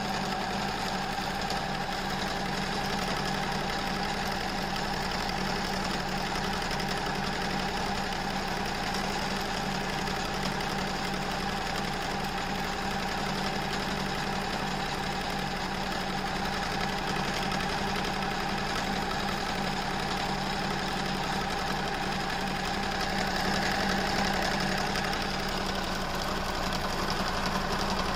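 Pfaff Creative 1469 computerized sewing machine running steadily at speed, stitching through thick fabric.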